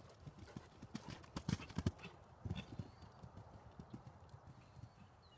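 Hoofbeats of a horse cantering on soft sand-and-dirt arena footing. The thuds are loudest as it passes about one and a half to two and a half seconds in, then fade as it moves away.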